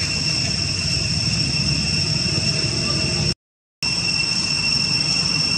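Steady outdoor ambience: a constant high-pitched drone over a low rumble, broken by a half-second cut to silence about three seconds in.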